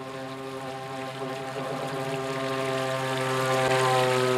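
Vintage Kyosho Marine Streamliner RC model speedboat running at speed with a steady hum from its motor, growing louder as it comes in and passes close about four seconds in, with a rushing hiss of water off the hull rising along with it.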